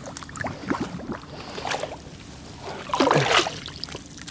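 Shallow paddy-field water sloshing and splashing as an eel trap is handled in it, with small clicks and a louder splash about three seconds in.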